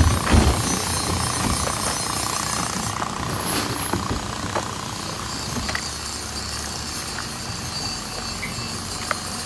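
Speedboat's inboard Yanmar engine running at speed on a test run, with a wash of water noise, fading slowly as the boat pulls away.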